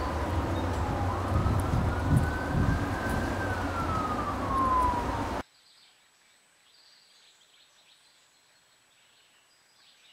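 A distant siren wailing slowly up and down over a steady low outdoor rumble. It cuts off suddenly about five seconds in, leaving near silence.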